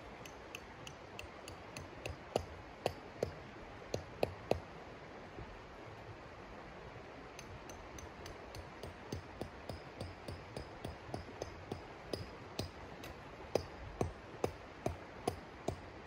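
A run of light, irregular clicks and clinks, a few a second, as of small hard objects knocking together, over a steady low hiss. They come in two spells, the second running on to the end and holding the loudest knocks.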